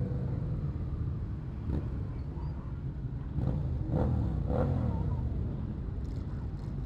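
Motorcycle engines in a group ride: a steady engine rumble at road speed, the engine note rising and falling briefly about four seconds in.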